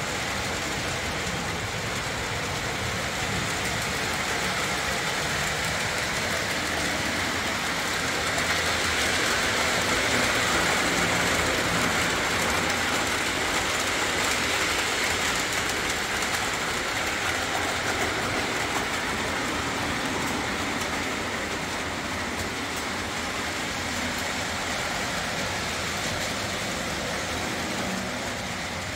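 Lionel O-27 Alco model train running on three-rail track, its motor whirring and its wheels clattering over the rails. It grows louder about eight seconds in as it comes close, then slowly eases off.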